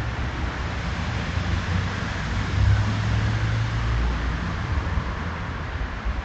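Steady outdoor background hiss with a low, wavering rumble beneath it that swells about three seconds in.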